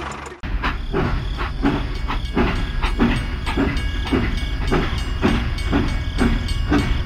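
Train running on rails: a steady low rumble with a rhythmic clickety-clack of wheels over rail joints, about three clacks a second, starting about half a second in.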